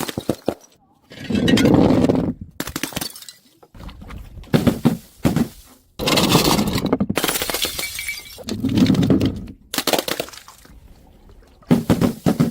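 Glass bottles breaking on stairs: several loud smashes, with clinking and clattering of glass between them.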